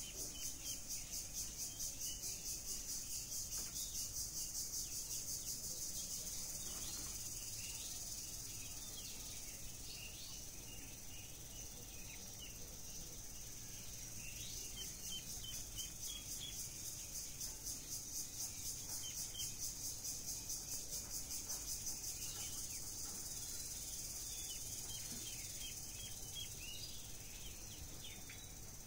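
A steady, high-pitched, pulsing chorus of insects, with faint, short peeps from ducklings scattered through it.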